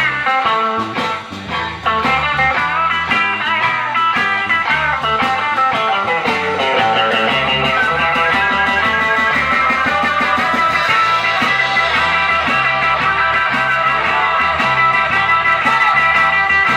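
Live blues band playing, with an electric guitar carrying a lead line of bent, wavering notes over bass and drums.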